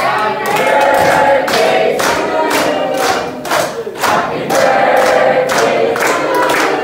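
A group of people singing together, clapping in time about twice a second.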